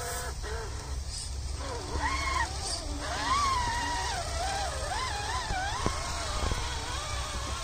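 Electric motor and gears of a radio-controlled scale crawler whining, the pitch rising and falling over and over as the throttle is worked, over a steady low rumble.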